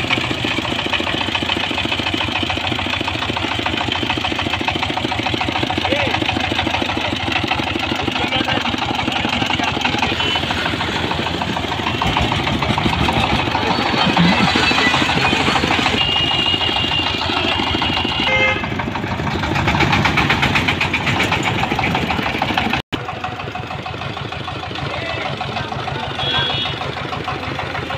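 Power tiller's single-cylinder diesel engine running steadily with a rapid, even knock as the machine drives along the road. The sound drops out for an instant a little before the end and resumes slightly quieter.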